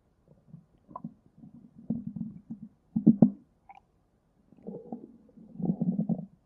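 Stomach growling: irregular low gurgles and rumbles, with a pair of sharper pops about three seconds in and a longer bubbling rumble near the end.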